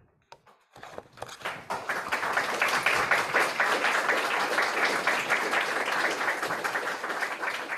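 Audience applauding: a few scattered claps that swell within about a second into dense, steady clapping.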